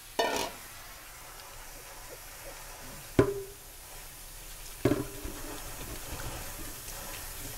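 A metal caldero cooking pot clanking as it is handled and wiped clean: a knock at the start, then two clanks with a short ring about three and five seconds in. Under them runs a steady hiss from a pressure cooker letting off its steam.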